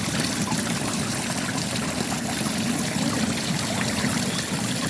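Water trickling steadily over the stones of a garden rockery water feature into a fish pond.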